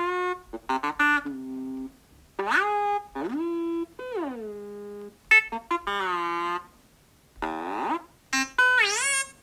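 Bebot synthesizer app on a phone touchscreen, played with a finger to make BB-8-style droid chirps: short electronic notes that swoop up and down in pitch, some long falling glides, a quick wobble, and brief pauses between phrases.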